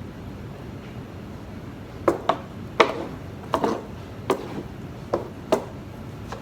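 A run of about eight sharp, irregularly spaced knocks on a hard surface, starting about two seconds in and ending a little before the end.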